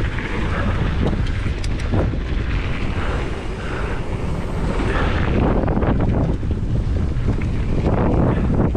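Wind buffeting the microphone while a mountain bike rolls along a trail, a constant heavy rumble with a few scattered clicks and rattles.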